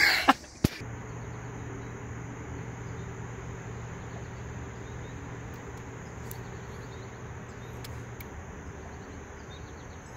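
Steady high-pitched insect trilling over an even background hiss, with a low steady hum underneath that stops about eight seconds in.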